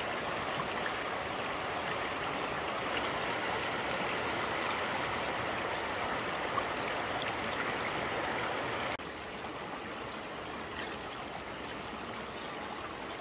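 Shallow mountain stream flowing over rocks, a steady rush of water that drops to a quieter level about nine seconds in.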